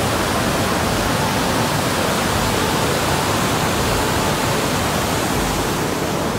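Muddy water gushing out of a concrete sluice outlet and pouring into the channel below: a loud, steady rush of water.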